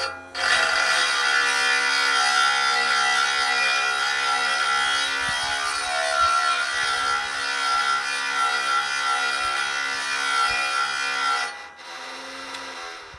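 Small diamond grinding wheel on a battery-powered sharpening jig grinding a tungsten carbide saw tip: a steady motor whine with a gritty grinding hiss. Near the end the wheel comes off the tooth and the motor keeps whining more quietly.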